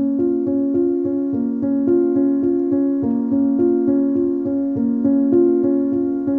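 Background music: a keyboard melody with a piano sound, its notes evenly paced at about four a second.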